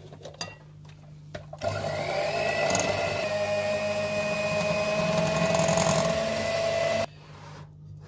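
Electric hand mixer with twin wire beaters running as it beats thin chocolate sponge batter. It starts about one and a half seconds in, holds a steady whining pitch, and cuts off suddenly about seven seconds in.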